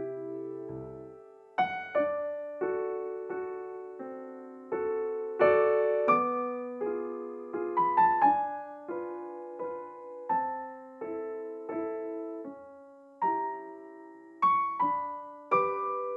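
Background piano music: a calm melody of single notes and chords, each struck and left to fade.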